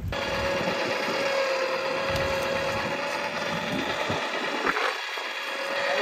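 Boat's powered net hauler running steadily as it winds in a gill net, a continuous mechanical whine with a held tone, with a short click about halfway through.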